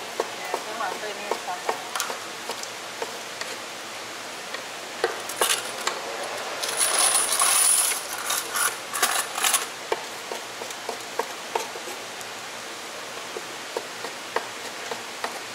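A Chinese cleaver chopping cooked pork offal on a wooden cutting board: a run of sharp knocks, uneven and irregular. About seven seconds in, a louder stretch of the steel blade scraping across the board as the pieces are gathered up.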